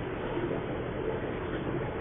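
Water running steadily, an even noise without breaks or separate splashes.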